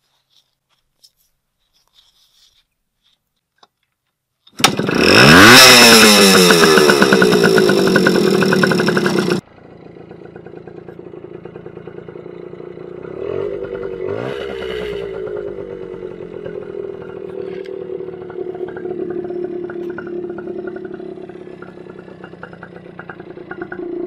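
A 1979 Yamaha MR50's small two-stroke single-cylinder engine fires up on one push of the kickstarter, now that its dirty contact points have been cleaned. It starts about four and a half seconds in and revs up with a rising pitch, then cuts off suddenly. A quieter, steady running follows, with two brief throttle blips.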